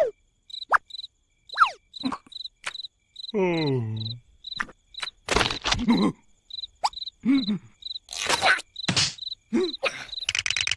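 Crickets chirping in an even rhythm of about three chirps a second. Over them come the cartoon larvae's wordless vocal noises and quick falling whistle-like glides, with a long falling groan a little after three seconds in.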